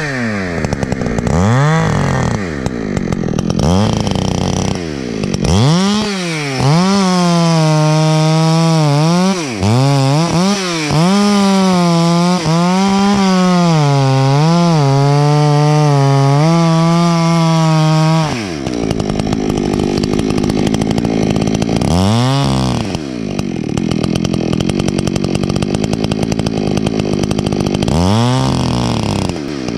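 Two-stroke chainsaw revving up and cutting the felling notch into a standing pine trunk at full throttle, its pitch dipping and recovering as the chain bites. About eighteen seconds in it drops back to a lower idle, blips once, and revs up again near the end.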